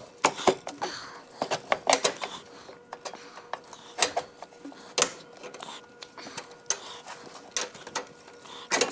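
Irregular clinks and knocks of hand tools and metal parts being handled while a plate is taken off a mower, over a faint steady hum.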